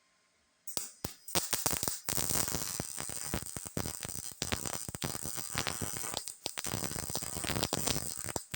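MIG welder arc crackling on thin sheet-metal body panel: a few short sputtering starts about a second in, then a steady crackling bead that runs until it stops near the end.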